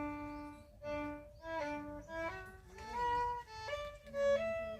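Background music: a bowed fiddle playing a melody of short held notes, some sliding into the next pitch.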